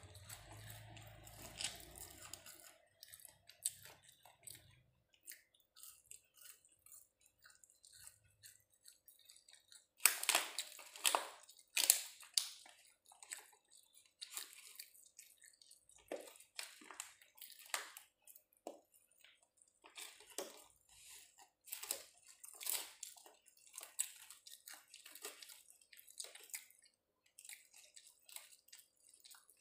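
A person eating fried chicken and rice with his fingers: chewing and lip-smacking made up of many short, irregular clicks, loudest in a cluster about ten to thirteen seconds in.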